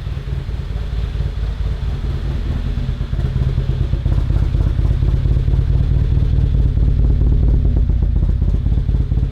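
Rebuilt stroker Ford Focus ST turbocharged four-cylinder engine running with a steady, even low pulse, getting louder about three seconds in.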